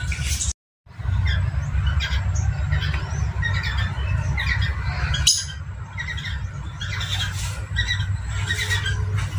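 A pair of small caged parrots chattering with rapid short squawks and chirps while mating on a perch, over a steady low hum. The sound cuts out for a moment about half a second in.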